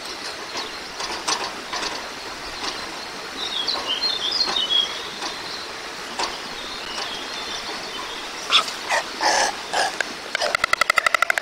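Outdoor ambience with a small bird chirping briefly and scattered light knocks. Near the end a white stork's bill-clattering starts: a fast, even rattle of about fifteen to twenty strokes a second.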